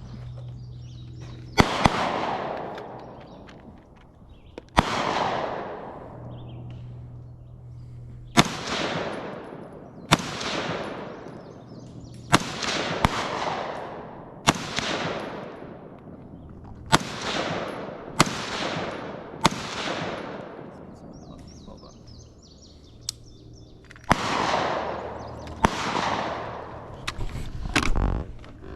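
Rifle gunshots fired one at a time, about a dozen over the stretch at uneven gaps of one to a few seconds, each a sharp crack followed by a long rolling echo.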